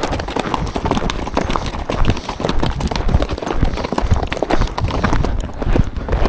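Hoofbeats of a ridden horse moving fast, a quick continuous run of hoof strikes on a forest trail, heard from the saddle with deep rumble and jostling on the microphone.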